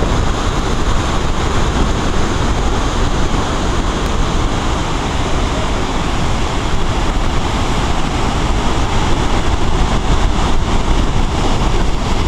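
Heavy surf breaking and washing over a rocky shore in a steady roar, with wind rumbling on the microphone.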